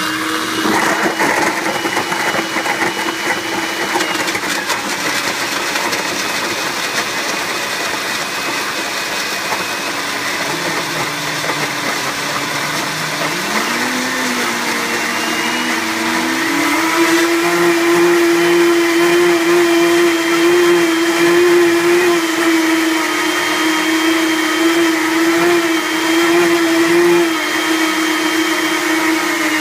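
Two countertop blenders, a Blendtec on its liquify cycle and a Cuisinart, running together on frozen berries, mango and ice, making a steady motor whine. About halfway through, one motor's pitch climbs and the sound gets a little louder.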